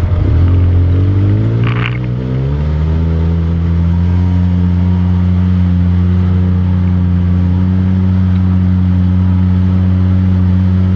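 ATV engine accelerating, its pitch climbing over the first two or three seconds, then running steadily at a constant higher speed.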